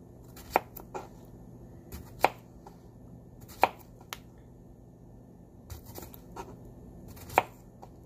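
Small kitchen knife slicing through a peeled cucumber and knocking on a wooden cutting board: irregular sharp knocks, a few seconds apart at times.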